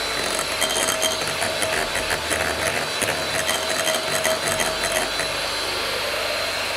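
Anex electric hand mixer running at high speed, its beaters whipping gram-flour batter to beat air into it and rattling against the glass bowl. The rattling eases after about five seconds, leaving the steady tone of the motor.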